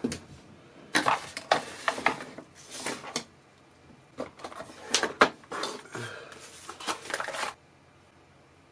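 Handling noises on a workbench: electronic parts, wires and packaging rustled and set down, a series of irregular rustles and clacks that stop about a second before the end.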